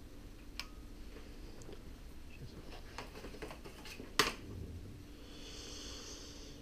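Stainless steel shower drain channels being handled and swapped on a display stand: light clicks and taps of metal, one sharp knock a little over four seconds in, then a short scraping hiss as a channel slides against the stand.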